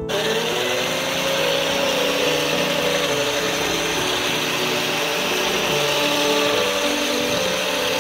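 Electric hand mixer starting up, its motor hum rising briefly as it spins up. It then runs steadily, the beaters churning flour into creamed butter.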